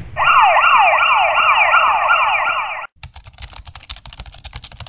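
A siren sound effect wailing in fast, repeated falling sweeps, about three a second, that cuts off after about three seconds. It is followed by the quieter rapid clicking of a typewriter sound effect.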